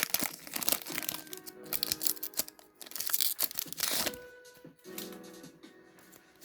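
Foil booster pack crinkling and tearing as it is opened, the crackle mostly in the first four seconds, over background music.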